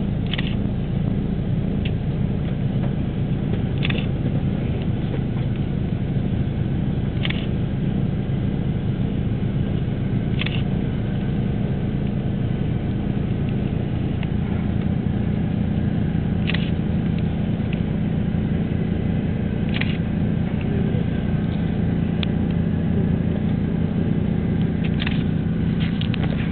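Steady low engine and road rumble heard from inside a slowly moving vehicle, with a short sharp click or rattle every few seconds.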